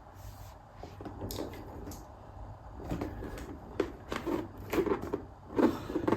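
Gift packaging being handled and opened: irregular rustling, crinkling and small clicks, growing busier from about three seconds in.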